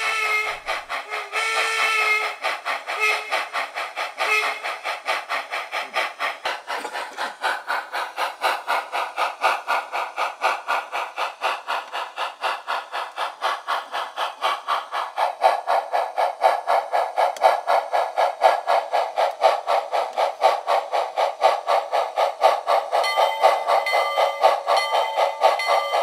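Steam locomotive sound effects from a SoundTraxx Econami sound decoder played through a small loudspeaker: a steady rhythmic exhaust chuff, with a whistle sounding in the first few seconds. It is thin with no bass at all, and it gets louder about halfway through as the speaker is set into its 3D-printed baffle.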